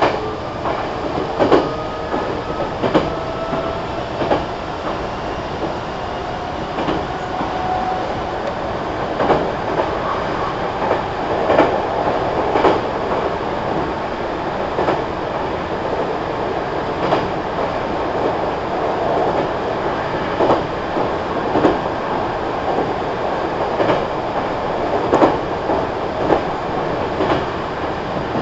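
Meitetsu 3300 series electric train running between stations, heard from on board. The traction motors' whine rises in pitch over the first several seconds as the train gathers speed, over a steady running rumble. Wheels click over rail joints roughly once a second.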